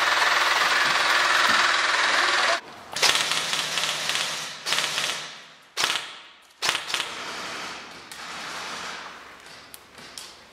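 Airsoft electric rifles firing on full auto: one long rattling burst of about two and a half seconds, then a string of shorter, fainter bursts. It is suppressing fire sprayed at a window.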